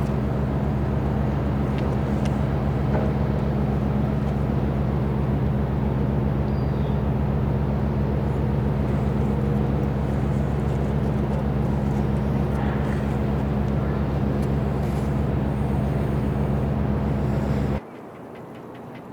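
Tugboat diesel engine running with a steady low drone, cutting off abruptly near the end.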